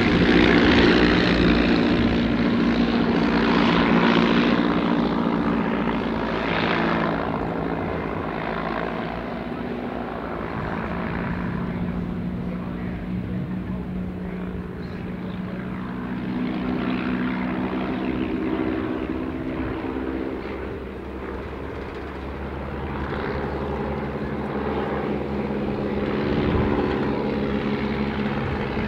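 Piston engines and propellers of de Havilland Tiger Moth biplanes, the Gipsy Major four-cylinder inline engines running as the aircraft fly past, their overlapping notes shifting in pitch. The sound is loudest at the start, fades about two-thirds of the way through, and swells again near the end.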